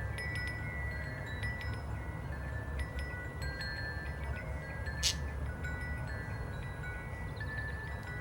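Chimes ringing in an uneven run of overlapping clear high tones, each struck note ringing on, with a short hiss about five seconds in.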